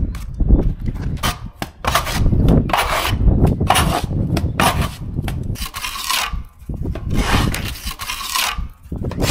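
A steel trowel scraping wet cement mortar across a board and out of a metal bucket, then pressing it into a gap: a run of short, irregular scrapes.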